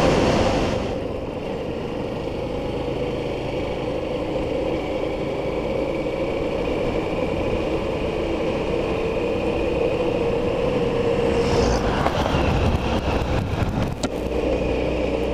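Motorcycle engine running steadily at cruising speed, with wind rushing over the microphone, heaviest in the first second.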